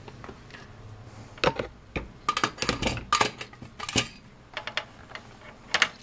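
Handling noise: a run of irregular clicks, knocks and clatters, starting about a second and a half in, as a handheld multimeter is lifted out of its foam-lined test fixture.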